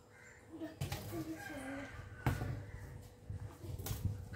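A plastic comb drawn through long, oiled, wet hair in a few short strokes, with short bird calls in the background.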